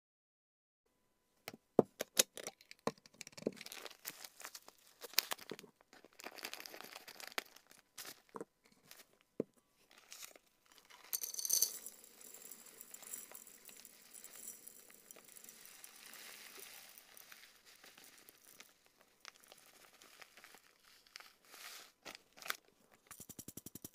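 Sharp clicks and knocks of a plastic storage container and dried treats being handled, then a plastic bag crinkling and a dry herb-and-flower mix poured into a glass jar with a steady rustling hiss. A fast run of small clicks near the end.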